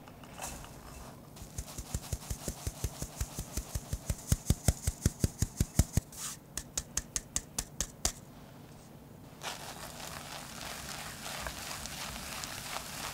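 Fine-mesh stainless steel sieve tapped by hand about five times a second to sift almond powder into a glass bowl, in two runs with a short pause between. A little after nine seconds in, a wire whisk starts stirring the almond powder into the egg whites with a steady scraping.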